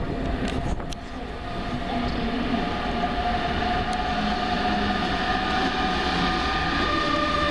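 A train running through a railway station: a steady rail rumble with a high, steady whine over it and a few clicks in the first second.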